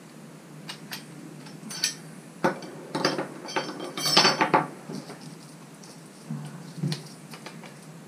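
Metal clicks and clinks from swapping the accessory on a cordless oscillating multitool: a steel blade is unclipped from the tool head and laid on the wooden bench, and another attachment is fitted. The knocks come irregularly and are busiest in the middle; the motor is not running.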